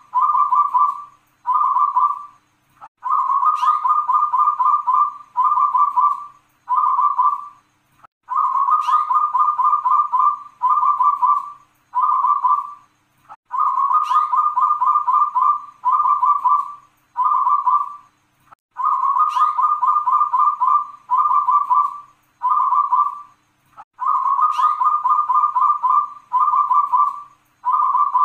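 Zebra dove (perkutut) cooing its song, a phrase repeated about every five seconds: a sharp upward note, a long rolling coo, then two shorter coos.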